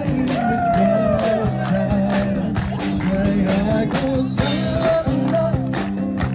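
Upbeat music with singing and a steady beat.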